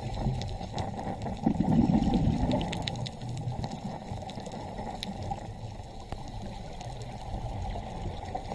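Muffled underwater noise from a diving camera, a dull rumble that swells briefly about two seconds in, with faint scattered clicks over it.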